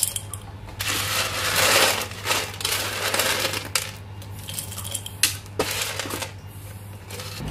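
Hard, crunchy candied peanuts being swept by hand across a ridged metal baking tray and dropped into a small glass jar, rattling and clattering in irregular bursts with a few sharp clicks.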